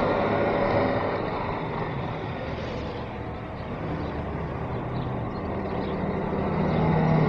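Saloon car engines and tyre noise as cars drive off along a street. Loudest at first, it eases around three seconds in, then builds again with a steadier low engine note as another car pulls out and follows.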